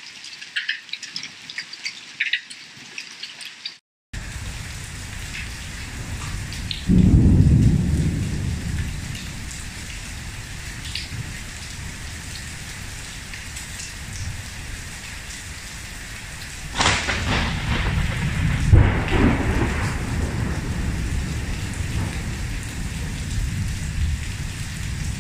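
Thunderstorm: heavy rain pouring steadily onto a paver patio and a swimming pool. Thunder rumbles loudly about seven seconds in, and a sharp thunderclap about seventeen seconds in rolls into more rumbling.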